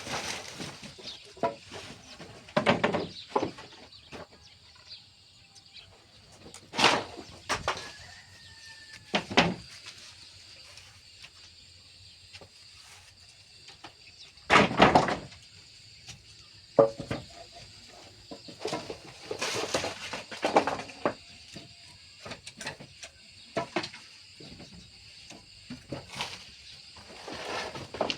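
Scattered knocks, bumps and scraping noises at irregular intervals, the loudest about 15 seconds in.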